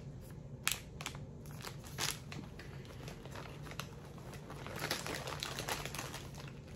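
Soft plastic wipes packet crinkling as it is handled and put away, with items rustling in a bag. Irregular crackles, the loudest about half a second, two seconds and five seconds in.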